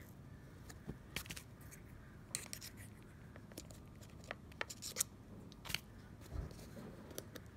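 Faint, scattered small clicks and crackles as a plastic strip stuck down with VHB tape is pried and peeled up off the roof, the tape loosened with alcohol.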